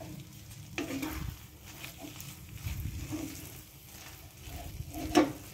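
Spatula stirring thick bread halwa in a pan: irregular scrapes and knocks against the pan, the loudest one near the end.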